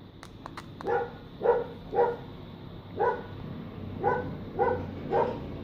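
A dog barking repeatedly: about seven short barks spaced half a second to a second apart, starting about a second in, with a few sharp clicks just before the first bark.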